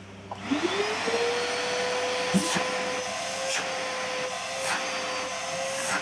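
A 2B 18-litre stainless-steel wet and dry vacuum cleaner switched on: its motor whine rises in pitch over about half a second, then it runs steadily with a strong rush of air and strong suction. A few light knocks come while it runs.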